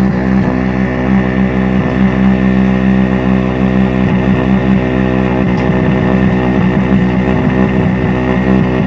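An engine running steadily at a constant speed, an even hum that neither revs nor changes.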